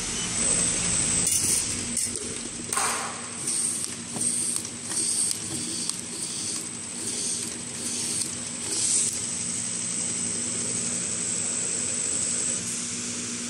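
Automatic wrap-around labeling machine for round plastic bottles running, with a steady hiss, a high whine and a low hum. Over the first nine seconds or so come short clicks and clinks, about one or two a second, as bottles pass along the conveyor. The high whine stops about twelve seconds in.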